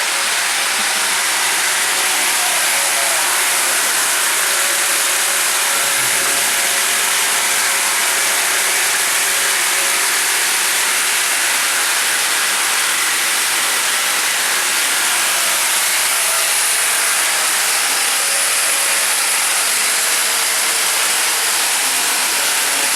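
Large horizontal band sawmill running, a steady hissing machine noise with a faint hum of tones underneath, unchanging throughout.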